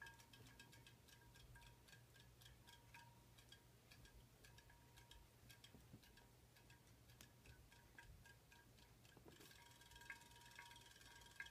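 Faint, rapid, even ticking from a small battery-powered robotic fish toy running, with a faint steady whine under it.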